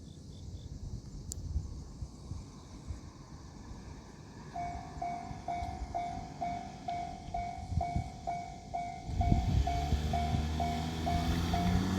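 Japanese railway level-crossing alarm starting about a third of the way in, a pitched ding repeating about twice a second. From about two-thirds in, the low rumble of an approaching train builds up beneath it.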